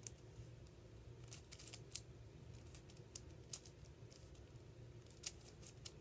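Layers of a 7x7 Rubik's cube being turned by hand: faint, uneven plastic clicks and snaps as the slices move.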